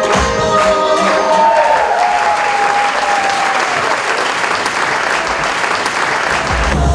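Audience applause rising as the runway music ends: the beat stops about a second and a half in and a last held note slides down and fades, leaving steady clapping, then a new track with a heavy beat cuts in near the end.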